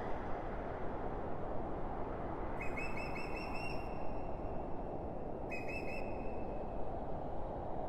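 Steady wind rushing over a mountainside, with a bird giving two whistled calls, each lasting a second or so, a couple of seconds apart.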